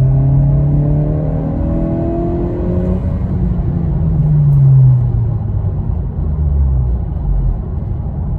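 2022 Honda Civic Si's turbocharged 1.5-litre four-cylinder accelerating hard in third gear on a KTuner boost tune, its note rising steadily. About five seconds in the throttle comes off and the revs fall away.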